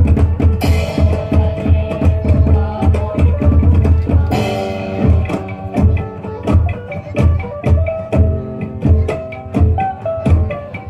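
Music driven by drums and rapid percussion strokes, with a bright crash that rings on about half a second in and again a little after four seconds.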